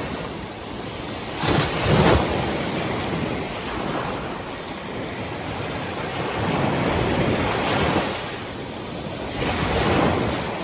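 Ocean waves breaking and washing up the beach: a continuous hiss of surf that swells three times, loudest about two seconds in, again around seven seconds and near the end.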